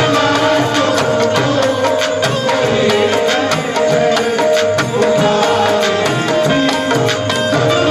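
Instrumental interlude of Indian ghazal music: a melody of held notes over a steady tabla-style hand-drum beat, with no singing.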